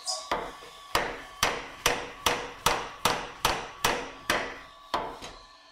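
Beaudry Peerless mechanical power hammer running, its ram striking the dies in a steady rhythm of about two to three sharp metallic blows a second, with the blows slowing and weakening near the end. The stroke is short because the dies open only about an inch and a half, which the owner puts down to a built-up bottom die.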